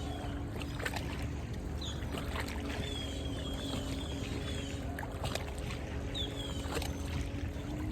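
Steady low hum with a faint steady tone, birds chirping in short falling notes now and then, and scattered light clicks.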